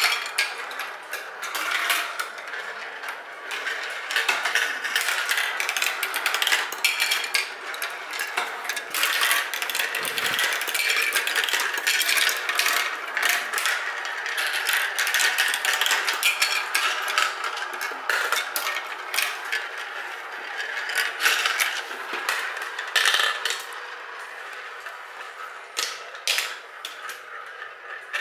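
Marbles rolling around plastic funnel bowls and clattering along and down a plastic marble-run track: a dense, continuous run of small clicks and rattles over a rolling noise.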